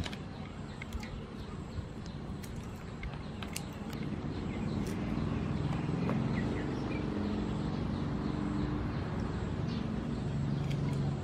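Outdoor ambience with birds chirping now and then. From about four seconds in, a low steady drone joins in and holds to the end.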